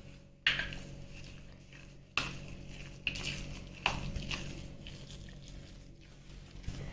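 Metal spoon stirring thick semolina (rava) idli batter in a ceramic bowl: soft scraping with a few sharp clinks of the spoon against the bowl, about half a second, two seconds and four seconds in.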